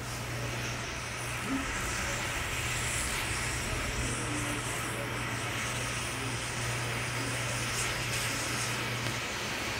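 An electrical fault in the street's power cabling arcing and burning up through the asphalt: a steady hissing rush with a continuous low mains buzz underneath.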